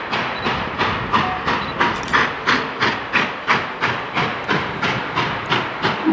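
Norfolk & Western 611, a Class J 4-8-4 steam locomotive, working hard as it pulls its train, its exhaust chuffing in an even beat of about three a second.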